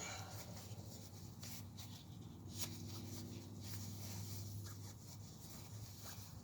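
Faint scraping, rubbing and clicking from hands working the plastic evap purge line and its fittings, over a low steady hum.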